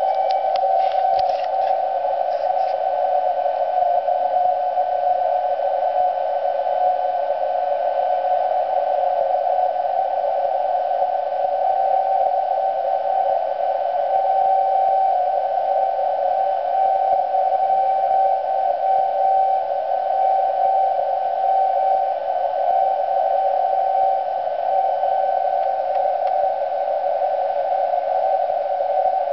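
Receiver audio from a Kenwood TS-2000X tuned to a TV transmitter's carrier at 49.7396 MHz: a narrow band of hiss with a steady beat tone near 770 Hz. The tone is the carrier of a transmitter over 1,000 km away, heard by meteor scatter. It grows a little stronger around the middle.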